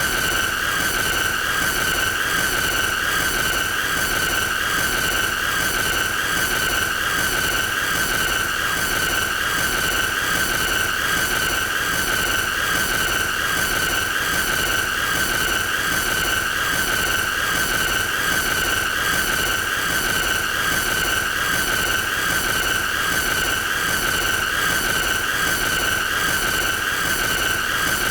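A continuous shrill, high-pitched screeching tone with a fast, even flutter, held unbroken at one pitch: a looped annoying-sound effect.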